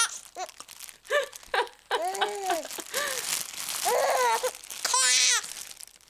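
Plastic being crinkled and crumpled, with a baby laughing in several short, high-pitched squealing bursts in between; the baby is laughing at the crinkling sound.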